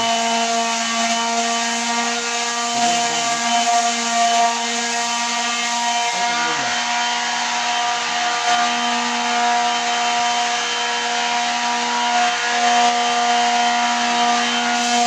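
A machine running steadily: a constant pitched hum with a hiss of noise over it that holds without pause or change.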